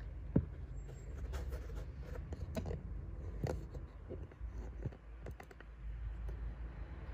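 Handling noise: irregular light clicks and taps as the phone and inspection camera are moved about, over a steady low rumble.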